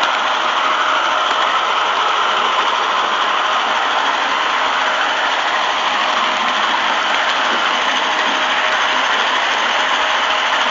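Model train running steadily along the track, its motor and wheels making a continuous whirring, rattling noise heard close up from a camera riding on the train.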